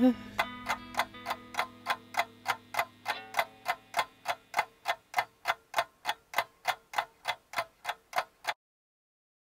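Clock ticking steadily, about three ticks a second, over faint held tones that fade out, then cutting off suddenly near the end.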